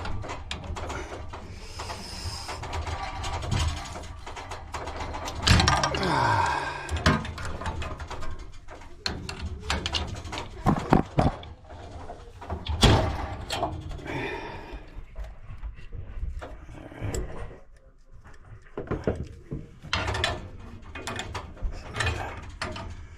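Wrench work on compression fittings of water heater pipes: scattered metal clicks, clanks and scrapes, with a brief squeak about six seconds in.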